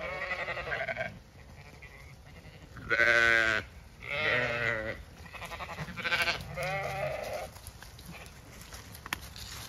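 Zwartbles ewes bleating, about five calls in a row, the loudest about three seconds in, as they wait to be fed.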